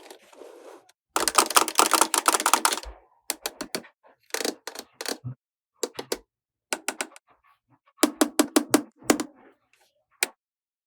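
Small plastic toy pieces being handled: a brief rustle, then a dense run of rattling clicks, followed by short clusters of sharp plastic clicks and taps.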